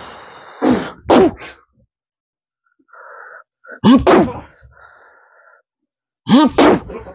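Men's short, sharp shouted cries, like yells of effort, coming in three pairs a few seconds apart.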